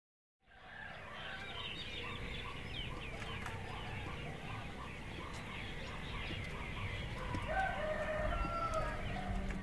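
Dawn ambience of many small birds chirping. A rooster crows near the end.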